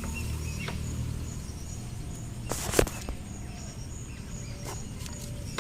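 A sharp metallic clatter about halfway through, with a few lighter clicks near the end, as a worn motorcycle chain is pulled on its rear sprocket. A low hum dies away in the first two seconds, and crickets chirp steadily in the background.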